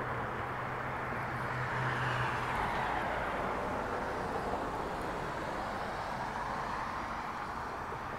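Street traffic noise: the steady rush of vehicles on the road, swelling a couple of seconds in and then easing, with a low steady hum for the first couple of seconds.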